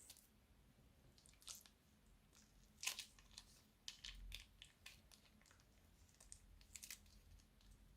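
Sparse, irregular crisp crackles and clicks of crunchy slime being handled, the loudest crackle about three seconds in.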